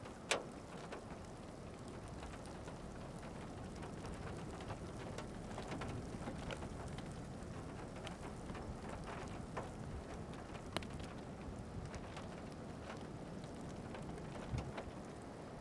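Waterfall-like roar of a close-range tornado: a steady rushing noise with a few sharp clicks scattered through it, the strongest right at the start.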